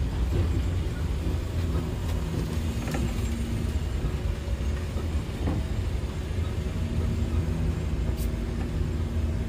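Bus diesel engine running at low speed, a steady low rumble heard from inside the cabin as the bus rolls slowly across a yard.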